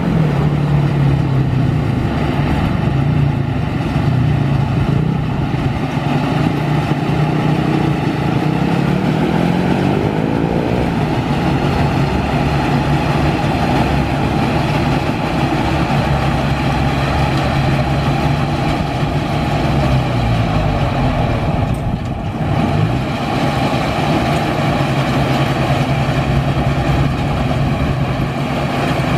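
Yanmar AW70V crawler combine harvester running under load while harvesting rice, with its engine and threshing machinery going steadily. A higher tone rises partway through, and the engine note dips briefly about two-thirds of the way in before it recovers.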